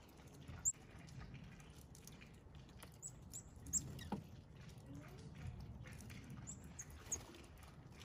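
Short, very high chip notes from small feeder birds such as black-capped chickadees and tufted titmice: one early, a quick cluster of three around the middle, and three more near the end. Faint taps and scrapes sound between them over a low outdoor rumble.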